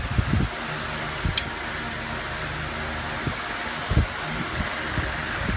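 Steady low mechanical hum, with a few soft thumps and one short high tick about a second and a half in.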